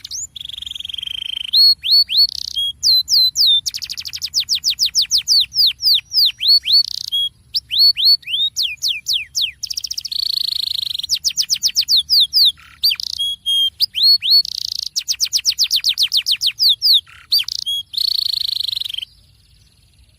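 Domestic canary singing a rolling song: fast trills of repeated down-slurred notes alternating with held whistled tones, stopping about a second before the end.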